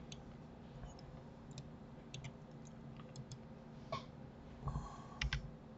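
Scattered soft clicks of a computer mouse, with a few louder clicks and thumps near the end, over a faint steady low hum.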